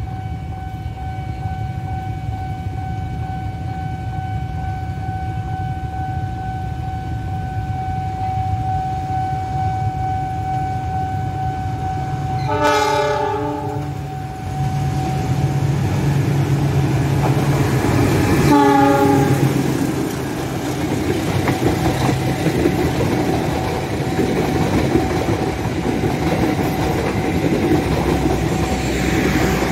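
A diesel locomotive's horn sounds two blasts, each about a second long and about six seconds apart, over the steady rumble and wheel clatter of a passenger train. A steady high electronic tone sounds through the first half and again near the end.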